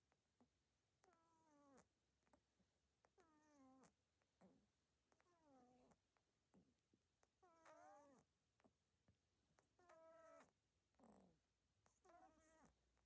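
An animal's faint, repeated calls, each under a second and falling in pitch, coming about every two seconds, with small clicks in between.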